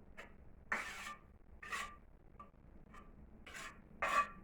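About five short, irregular scraping strokes from hand work on firebox bricks and mortar.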